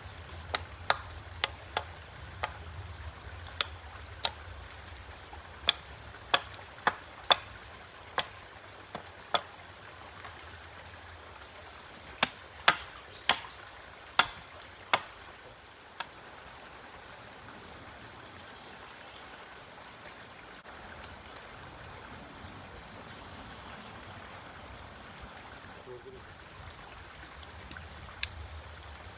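Chopping: a hand tool striking wood in a run of sharp, irregular blows, about twenty in the first fifteen seconds, then a long pause with two more blows near the end.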